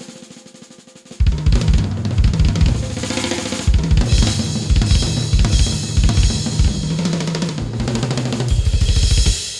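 Drum kit break in a recorded music track. Soft quick hits first, then heavy bass-drum kicks come in loudly about a second in, under snare and cymbals. It ends near the end with a fast run of kicks that stops and rings away.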